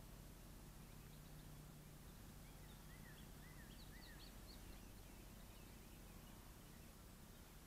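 Near silence: faint outdoor hiss, with a few faint, high bird chirps in the middle.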